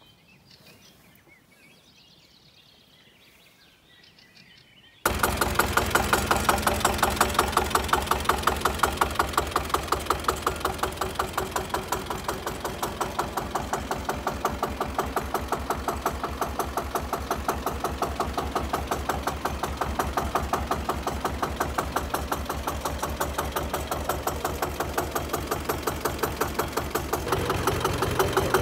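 About five seconds of faint background, then a Zetor 25K tractor's two-cylinder diesel engine cuts in suddenly, running with a steady, even pulse. It gets louder a little before the end.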